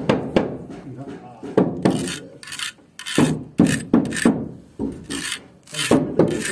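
Pencil scratching along the edge of a spirit level on a rough concrete floor, drawing a line: a series of short rasping strokes, about two a second.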